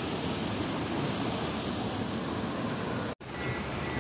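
Steady roar of city street traffic and wind noise, with no voices. It drops out for an instant about three seconds in, and faint, evenly spaced high beeps start just after.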